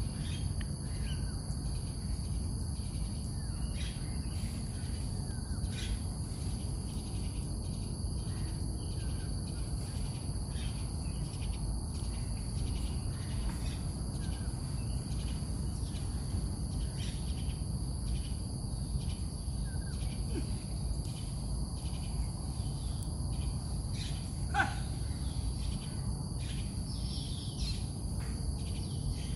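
Outdoor park ambience: insects trilling in a steady high-pitched drone over a low, steady rumble, with scattered faint bird calls. One short, louder call sounds about three-quarters of the way through.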